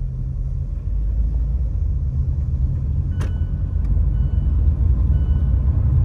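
Low engine and road rumble inside the cabin of a 2014 Mazda 3, growing louder as the Skyactiv four-cylinder accelerates under load. During this pull the engine is misfiring on cylinder 3, which the mechanic traces to a failing ignition coil.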